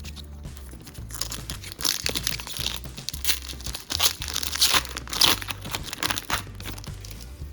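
Foil Pokémon booster pack wrapper crinkling and tearing as it is opened by hand, a run of sharp crackles starting about a second in and stopping shortly before the end. Quiet background music underneath.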